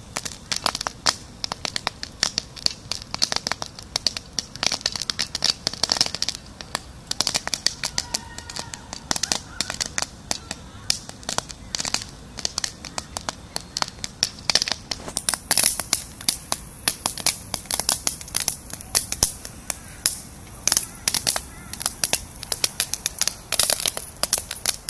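Popcorn kernels popping in an uncovered frying pan on a portable gas stove: irregular sharp pops, several a second.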